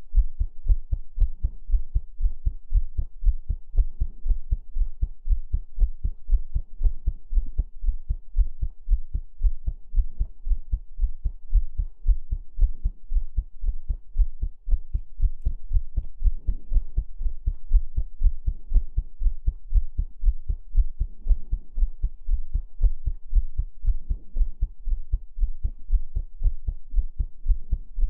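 Heartbeat sounds: a steady, regular rhythm of low thumps.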